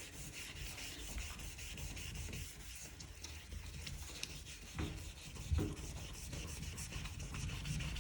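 Melamine foam (magic) sponge scrubbing a wet glass shower screen with a cleaning-powder paste in circular strokes: a steady scratchy rubbing. Two soft thumps come about five seconds in.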